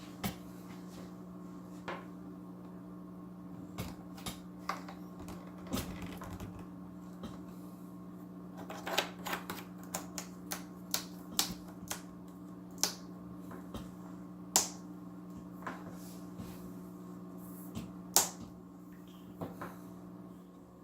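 Scattered light clicks and taps of hard plastic parts being handled: canister filter valve and hose fittings. The clicks come thickest in the middle stretch, with two louder ones later on, over a steady low hum.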